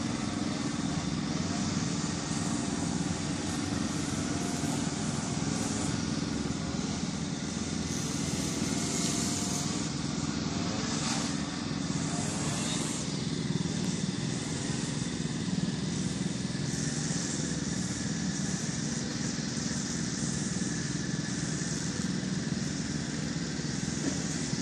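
Petrol push lawn mower engine running steadily.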